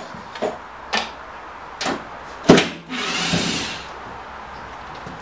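Sharp knocks and clicks from handling tools and screws, then a cordless drill/driver whirring for about a second while driving a screw into the plywood panel.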